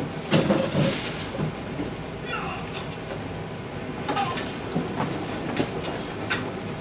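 Cardboard shoeboxes and their packing being handled as sneakers are unpacked: rustling and scraping in several bursts, with a few light knocks.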